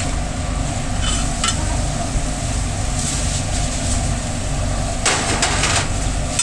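Metal spatula scraping and chopping on a flat-top griddle with food sizzling: a short scrape about a second in and a longer run of scrapes about five seconds in, over a steady low machine drone.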